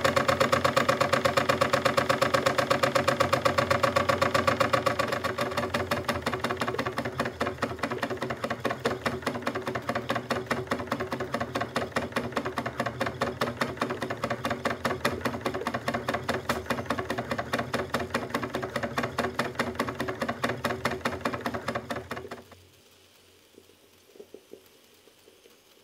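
Jensen 25 G model steam engine running fast, a rapid steady chuffing clatter of steam exhaust and moving parts. It eases slightly a few seconds in, then cuts off suddenly near the end, leaving a few faint clicks.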